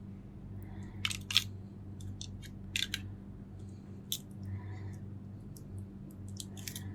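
A few short, sharp clicks and taps from handling the metal housing of a bullet CCTV camera, spread irregularly, over a steady low electrical hum.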